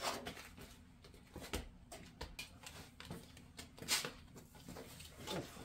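A child's bicycle being handled and moved: faint scattered clicks and light knocks, the sharpest click about four seconds in.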